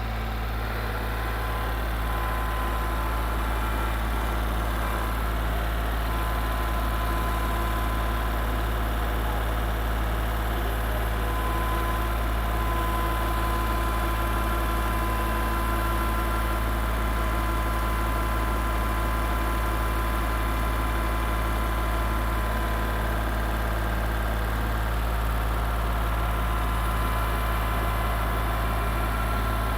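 Farm tractor engine running at a steady speed while towing a load.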